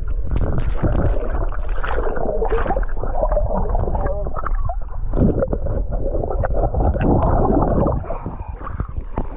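Lake water splashing and gurgling around a swimmer, continuous and muffled, with little treble, as heard with the camera in or at the water.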